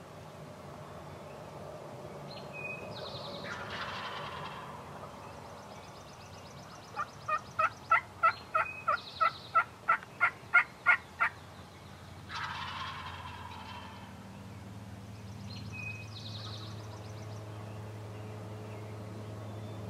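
Wild turkey gobbler gobbling twice, about three seconds in and again about twelve seconds in. In between comes a loud run of about fourteen evenly spaced turkey yelps, roughly three a second.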